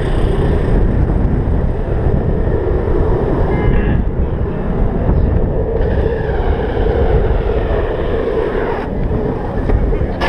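Steady wind rush on the microphone over the continuous roll of longboard wheels on asphalt at speed during a downhill run.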